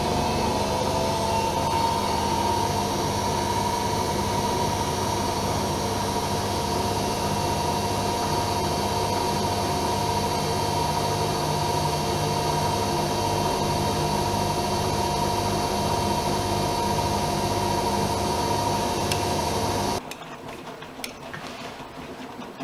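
AEG Öko-Lavamat Lavalogic 1600 washing machine's motor whining as the drum spins at speed, its pitch rising over the first two seconds and then holding steady. The whine cuts off abruptly about 20 seconds in, leaving a quieter, rougher running sound.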